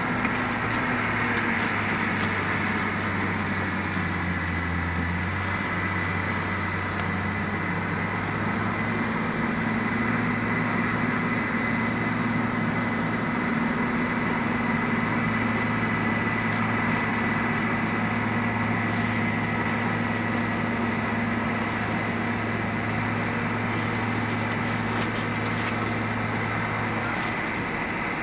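Case bulldozer's diesel engine running steadily under work, with a steady high whine over the engine note. The engine note shifts a little in the first few seconds, and a few sharp clicks come near the end.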